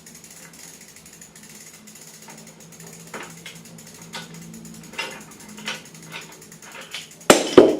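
A bicycle pedal being worked off its crank arm with a pedal wrench: scattered light metallic clicks, then two loud clanks in quick succession near the end.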